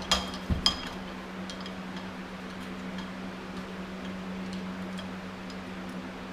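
Metal tools or parts clinking: a few sharp clicks in the first second, then scattered faint ticks, over a steady low hum.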